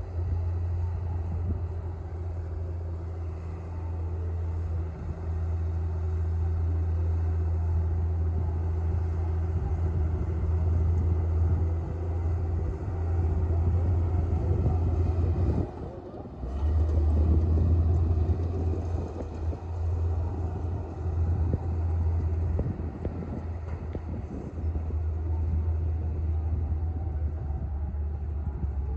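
Komatsu D58P bulldozer's diesel engine running steadily at work, a deep low hum that drops briefly about sixteen seconds in and then picks up again.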